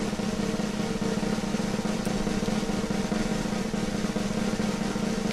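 Steady, sustained snare drum roll, a suspense sound effect that builds to the taste verdict.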